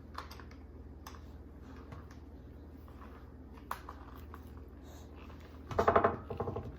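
Small clicks and scrapes of a tiny screwdriver working a screw in a plastic toy car, a screw that may be stripped. Near the end comes a brief, loud buzzing tone in two short parts.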